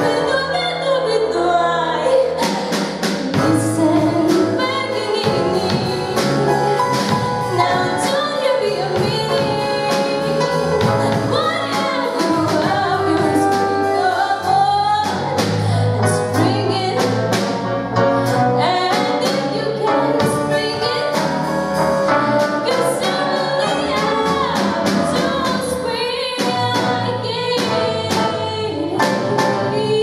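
A woman singing with a live band of strings, piano and drum kit, recorded from the audience; the drums come in about two seconds in and keep a steady beat under the voice.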